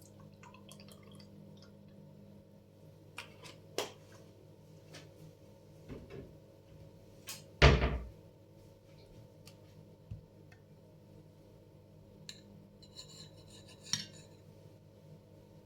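Kitchenware being handled: scattered light clicks and clinks of dishes and utensils, with one loud knock and a short ring about eight seconds in.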